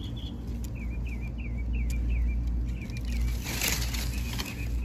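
Outdoor ambience with a steady low rumble, and a bird chirping quickly, about three times a second, for a couple of seconds. Around three and a half seconds in there is a brief scratch of a hand in loose soil.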